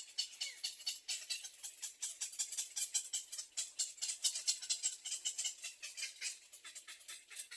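Nestling birds chirping, a rapid, continuous run of short high-pitched chirps.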